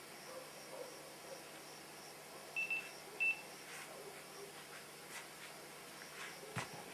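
Two short electronic beeps of the same high pitch, about half a second apart, midway through. A few faint clicks follow near the end, over a faint steady high hiss.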